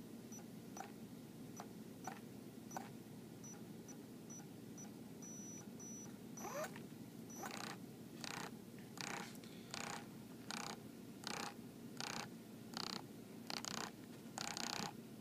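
Tekin ROC 412 brushless RC crawler motor, out of the vehicle, spinning up with a rising whine about six seconds in, then running in short, evenly spaced bursts about every 0.7 seconds. The motor is being tested for a knock that the owner now finds is more of a vibration. A few faint ticks come before it.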